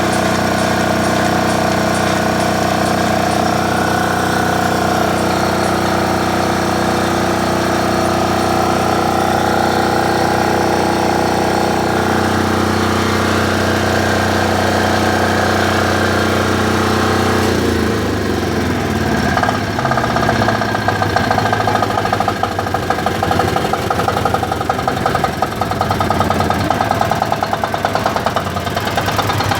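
SDG12800E diesel generator's engine running with a steady note; about two-thirds of the way through the note drops slightly and turns rough and pulsing.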